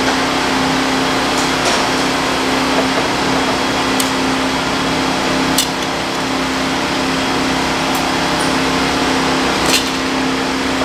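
A steady mechanical hum, with a few short, sharp metal clicks as a snap ring is worked out of a disc harrow's bearing hub with pliers.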